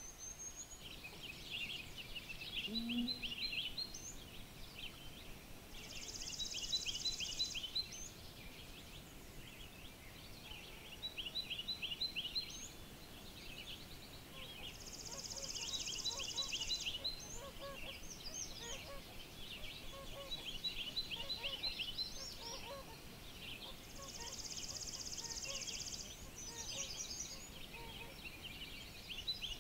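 Wild songbirds singing: one bird repeats a short phrase of quick rising notes every few seconds, and a high, even trill comes in about every nine seconds.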